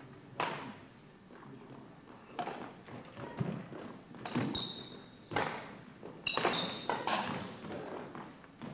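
Badminton rally: sharp racket strikes on the shuttlecock and players' footfalls on a wooden court, coming about once a second, with a couple of brief high squeaks.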